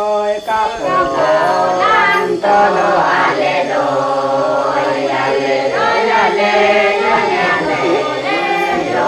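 Background music: a choir singing, several voices holding long notes together.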